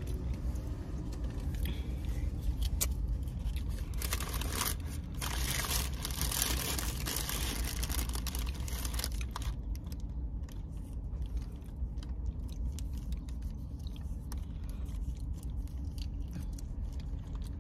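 Paper taco wrapper rustling and crinkling for several seconds, then softer crackles and clicks as fingers handle a hard-shell taco and its fillings, with some chewing. A steady low hum runs underneath.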